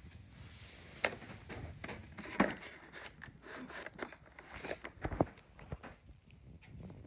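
Handling noise on a bed: bedding rustling, with scattered taps and knocks. The clearest knocks come about a second in, at about two and a half seconds and at about five seconds.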